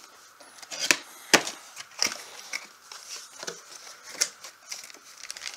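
Cardboard product box being opened by hand: flaps and tabs pulled loose with several sharp snaps, the loudest a little over a second in, amid scraping and rustling of cardboard.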